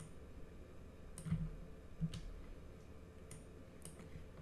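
Scattered, faint clicks of a computer mouse and keyboard being worked, about six over four seconds, some with a small thud.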